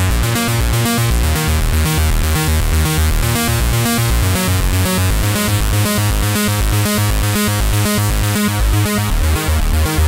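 TAL J-8 software synthesizer, an emulation of the Roland Jupiter-8, playing its 'Bring The Acid' preset: a fast, evenly repeating electronic synth pattern over a pulsing bass.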